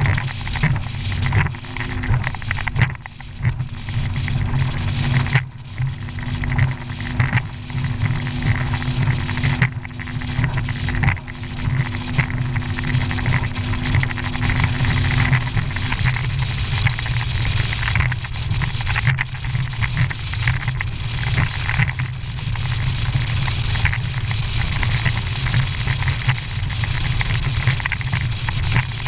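Bass boat running fast across choppy water: a steady low outboard motor drone under wind buffeting the microphone, with the hull slapping and banging over the waves. A steady engine tone drops out about halfway through.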